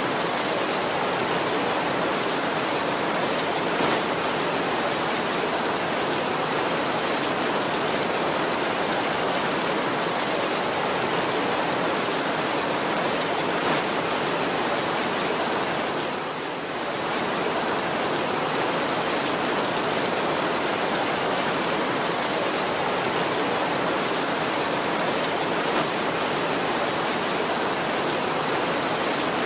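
Steady heavy rain, a dense even hiss, with a brief dip in loudness about sixteen seconds in.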